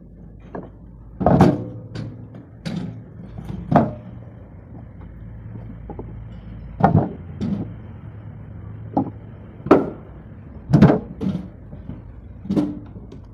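Heavy walnut stock blanks being tossed onto a pile of blocks and into a wheelbarrow: irregular hard wooden knocks and clatters, roughly one a second.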